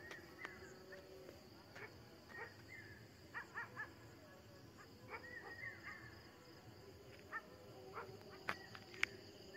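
Faint dog barking: short barks scattered through, some in quick runs of two or three. A steady high insect tone sits behind them.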